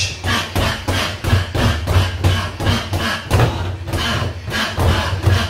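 Boxing gloves thudding into a freestanding punch bag in rapid jab-cross-hook-uppercut combinations, about four hits a second.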